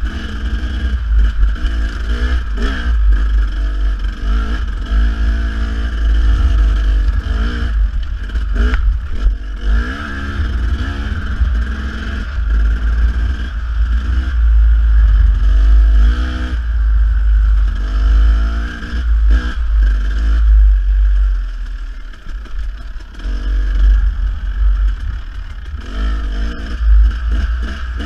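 Dirt bike engine revving up and down repeatedly as the throttle opens and closes, over a heavy low rumble, with a few sharp knocks along the way.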